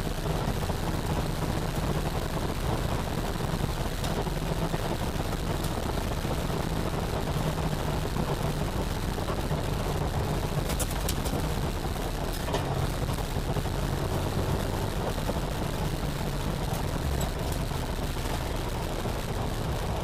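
Car engine running hard while lapping a track, heard from inside the cabin as a steady engine note under road and wind noise. A few brief clicks come about eleven seconds in.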